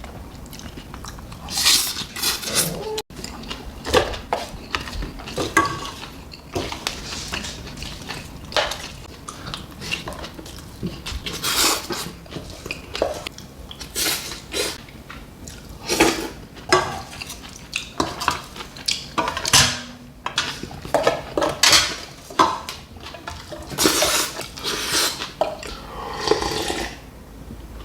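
Cutlery clinking and scraping against bowls and dishes during a meal, in short irregular strokes.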